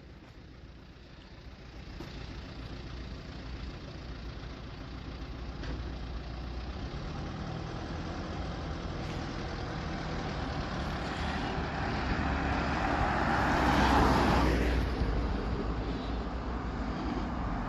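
A motor vehicle running, its sound building gradually to its loudest about fourteen seconds in, then easing off.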